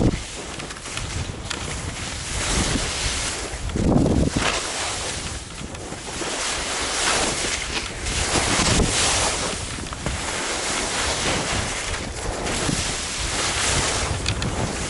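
Skis hissing and scraping over snow through a run of turns, with wind rushing over the microphone; the noise swells and fades every couple of seconds.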